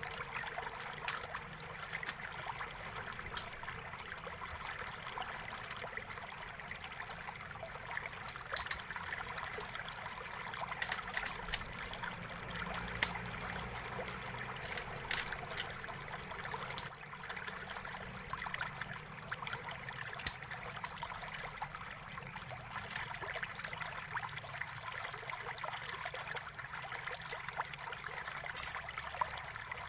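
Scattered small clicks and taps of a screwdriver turning out the chassis screws of a Toshiba NB305 netbook, over a steady background hiss.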